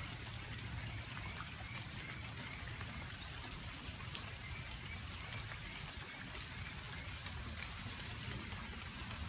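Light rain pattering steadily, with many small scattered drip ticks. Faint high chirps repeat quietly in the background.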